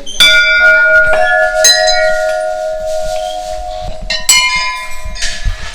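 Hindu temple bells struck several times, each strike ringing on at several pitches and slowly fading.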